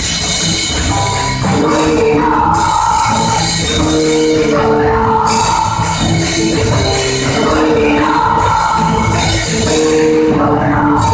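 A live rock band playing loud and without a break: electric guitar, bass guitar and drum kit, with a singer's voice over them in long held notes.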